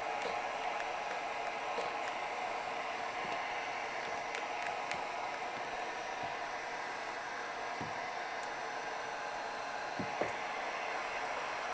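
Heat gun running steadily with an even blowing hiss, heating vinyl window trim to set its adhesive.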